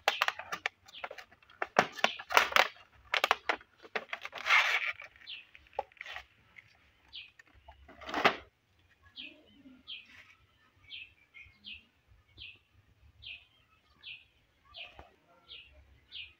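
Clicks and rustling of a cardboard baby care kit box and its plastic tools being handled for the first few seconds. Then a bird calls short, high chirps that each fall in pitch, about two a second.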